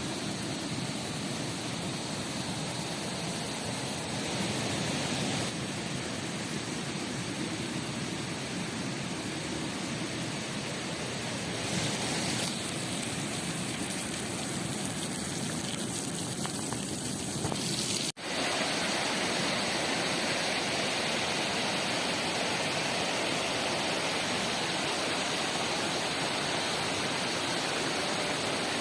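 Rushing river water, a steady dense rush with no distinct events. It drops out for an instant about 18 seconds in, then comes back a little louder.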